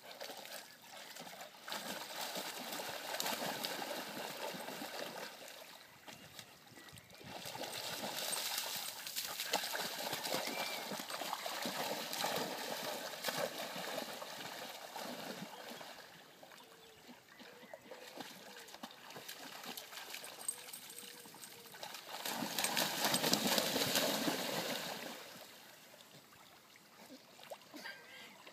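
Water splashing and sloshing as a German shepherd and a working cocker spaniel wade and paddle through shallow water. The splashing comes in bouts, loudest about three quarters of the way through.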